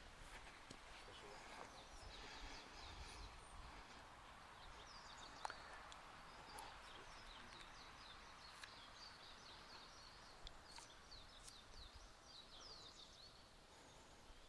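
Near silence: faint outdoor ambience with small birds chirping, short high chirps repeating through most of it.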